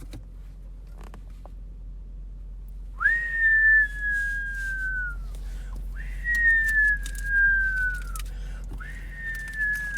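A person whistling three long notes about three seconds apart, starting a few seconds in; each note slowly slides down in pitch and drops off at its end.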